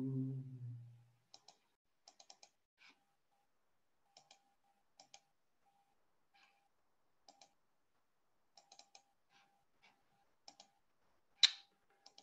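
Computer mouse and keyboard clicks, scattered single clicks and quick runs of two to four, with one louder click near the end.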